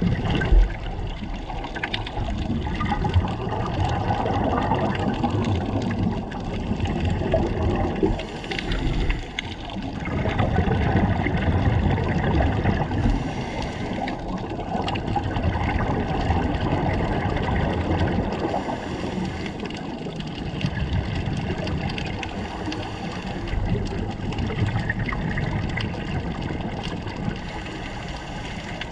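Muffled underwater rumble with scuba regulator exhaust bubbles gurgling, swelling and easing every few seconds.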